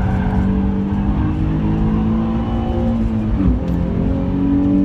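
Nissan 350Z's 3.5-litre V6 engine heard from inside the cabin, pulling hard under load. About three and a half seconds in the pitch drops suddenly, as in a quick upshift, and then climbs again.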